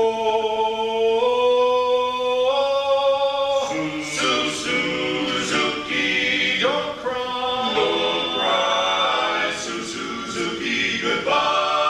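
Barbershop quartet singing a cappella in close harmony. It opens on a long held chord that steps up in pitch twice, then breaks into livelier moving vocal lines.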